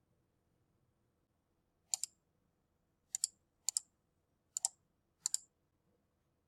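Computer mouse button clicked five times at uneven intervals, each click a quick press-and-release pair, starting about two seconds in.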